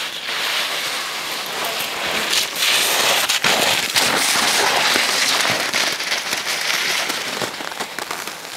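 Sled sliding down a packed snow run: a loud hissing scrape with many small crackles, building up and easing off near the end.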